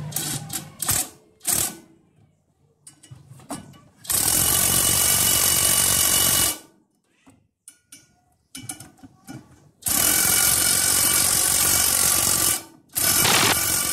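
Cordless impact driver running on bolts in a rice mill's husk blower housing, in three runs: one of about two and a half seconds from about four seconds in, another from about ten seconds, and a shorter one near the end. A few light clicks and knocks come in the first two seconds.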